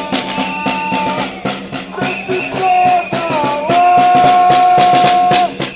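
Snare drum beaten in a steady marching rhythm, with long held pitched tones sounding over the beat.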